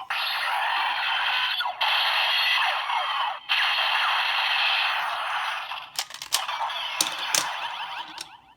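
DX Break Gunner toy's small speaker playing an electronic sound effect for the Burning Solar Shift Car: a loud, harsh, crackling noise in three stretches, then a few sharp clicks near the end.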